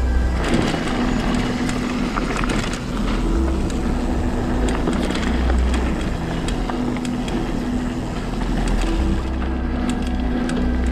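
Mountain bike descending a dirt trail at speed: wind rushing over the microphone, tyres rumbling on the ground, and the frame and parts rattling and knocking over bumps.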